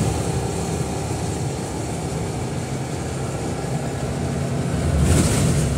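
Citroën 2CV6/3CV's 602 cc air-cooled flat-twin engine, converted to multipoint fuel injection, running steadily at about 4,000 rpm in fourth gear at around 70 km/h, heard from inside the moving car with road and wind noise. A brief rush of noise near the end.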